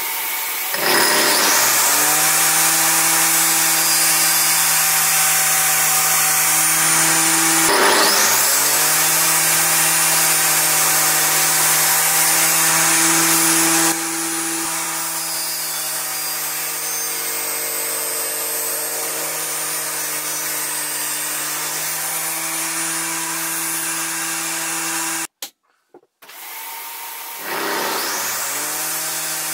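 Electric table saw motor spinning up and running steadily at speed. It comes up to speed near the start, spins up again about 8 seconds in, runs a little quieter from about 14 seconds, and cuts out briefly near the end before spinning up once more.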